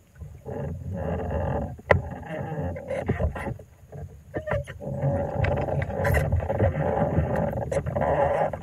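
Homemade foot-pedal drive rig on an inflatable paddleboard, knocking and creaking as it is handled and then pedaled; scattered knocks give way to steadier squeaky creaking from about five seconds in.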